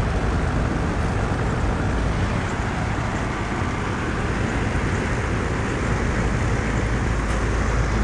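A 5-ton 2015 Lennox T-Class central air conditioner condensing unit running steadily in cooling mode: the condenser fan blowing air over the coil and the compressor giving a low, even hum.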